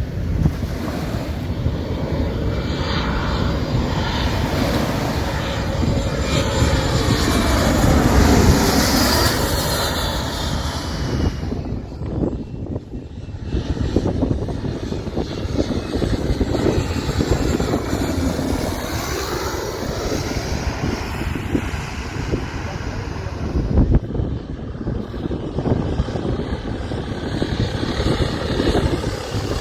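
Airplane passing low overhead with a loud engine rumble. Its engine whine falls in pitch as it goes by, about eight seconds in.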